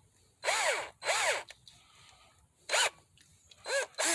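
Power drill given four short trigger pulses, its motor whirring up and winding down each time, as the chuck is snugged onto a soldering-iron tip without overtightening it.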